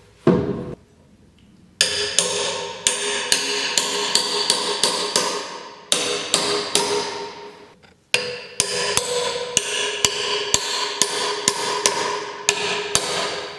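Forged iron log dogs hammered into a log with the pole of an axe: two long runs of quick, ringing metal-on-metal strikes, about three a second, with a pause of about two seconds between them. A single thud comes just before, as the log is set down on the stump.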